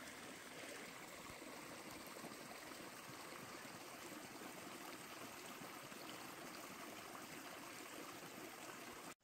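Faint, steady rushing and trickling of a small mountain creek flowing through a damp, forested creek bed. It cuts off abruptly near the end.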